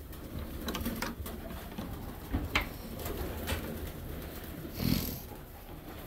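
Pigeons cooing in a loft, with scattered sharp clicks and a louder burst of noise about five seconds in.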